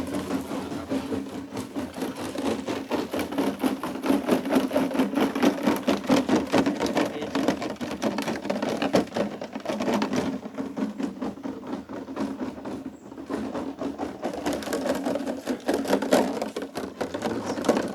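A noisemaker worked hard and fast: a continuous rapid rattling over a steady low hum. It dips briefly about ten and thirteen seconds in and stops suddenly at the end.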